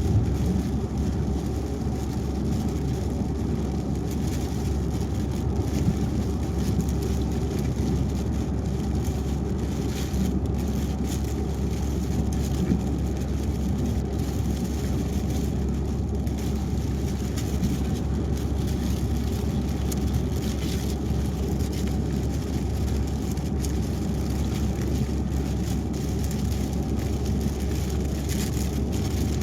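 Car driving on a highway in the rain: a steady low road-and-engine drone with a faint hiss of tyres on the wet road and rain.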